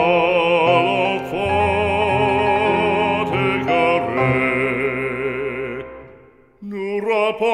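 Background music: a classical-style solo voice with strong vibrato holds long notes over sustained accompaniment. It fades away about six seconds in, and the next phrase begins just after.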